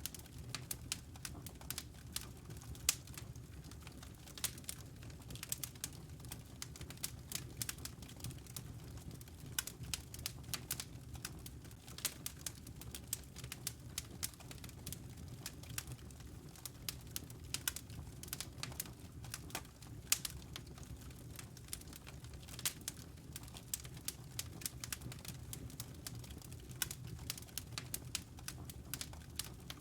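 Wood fire crackling in a fireplace: a steady stream of irregular sharp pops and snaps over a low, even rumble.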